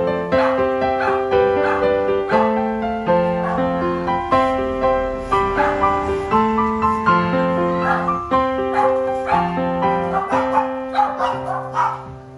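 Piano background music, with Shih Tzu puppies yipping again and again over it.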